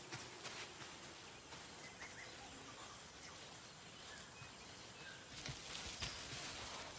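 Faint outdoor ambience: a steady soft hiss with a few faint, short bird chirps, and some soft rustles and light knocks near the end.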